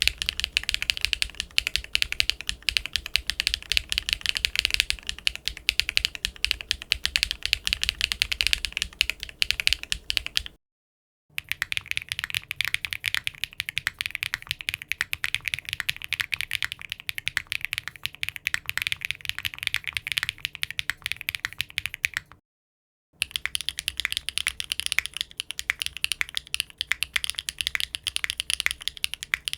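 Continuous fast typing on a mechanical keyboard with HMX Yogurt S linear switches: a dense run of key presses and bottom-outs. It comes in three runs, broken twice by a brief silence, about ten and twenty-two seconds in.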